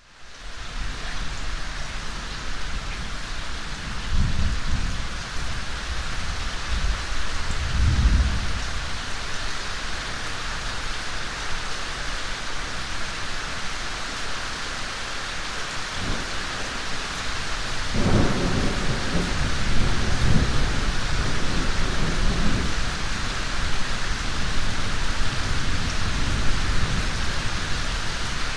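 Steady heavy rain hissing, with low rumbles of thunder, twice briefly early on and then a longer rolling rumble from about two-thirds of the way in.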